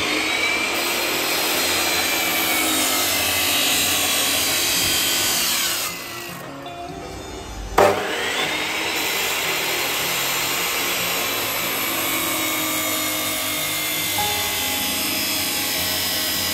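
Abrasive cut-off saw (chop saw) cutting steel angle iron: the motor whines and the disc grinds through the metal. About six seconds in the whine falls away as the saw winds down, then a sharp click a couple of seconds later and the motor spins back up and cuts again.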